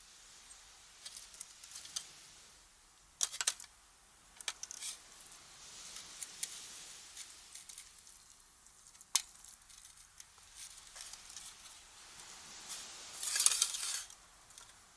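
Scattered light clinks and taps of camp cookware and tableware: a small cluster about three seconds in, a single sharp tap about nine seconds in, and a brief louder noisy burst near the end.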